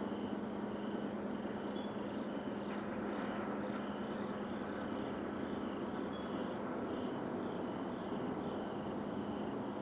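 Continuous rumbling drone from the sky with a steady low hum in it, unbroken and unchanging; its source is unidentified. Insects, likely crickets, chirp in an even pulse above it.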